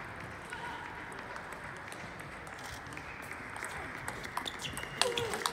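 Steady background noise of a busy hall with faint ball clicks from other tables, then near the end a few sharp clicks of a table tennis ball off bat and table as a rally starts, with a short squeak of a shoe on the court flooring.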